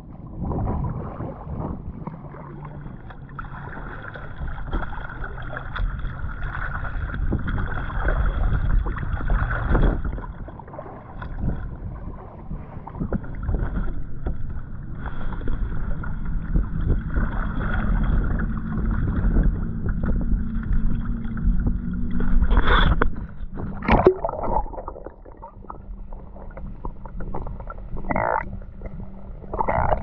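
Kayak on the water: water sloshing and paddle splashes against the hull, with a few sharp knocks or splashes near the end.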